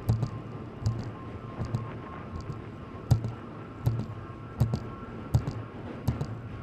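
Riding a fixed-gear bicycle: a click with a low thump about every three-quarters of a second, keeping an even rhythm, over steady ride noise.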